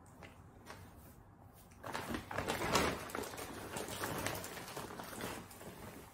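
Rustling and crinkling of a gift bag and packaging being handled and rummaged through, starting about two seconds in and lasting a few seconds.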